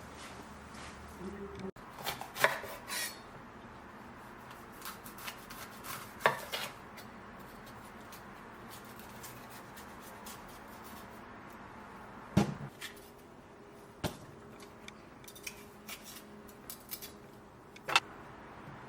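Kitchen work: utensils, dishes and pans knocking and clinking, with a few separate sharp knocks spread through a quiet stretch.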